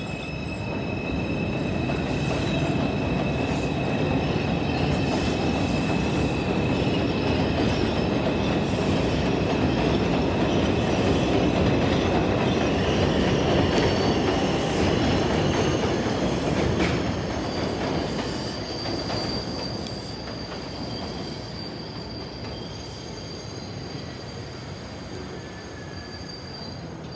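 New York City Subway R142 train pulling out and running past on the elevated steel structure: a rumble of wheels that builds to a peak and then fades as the train moves away. Steady high-pitched wheel squeal tones ring above the rumble throughout, and there is a single clank about 17 seconds in.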